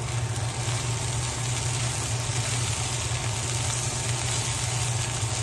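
Potato, cauliflower, peas and green chillies frying in oil in a pan, sizzling steadily, with a steady low hum underneath.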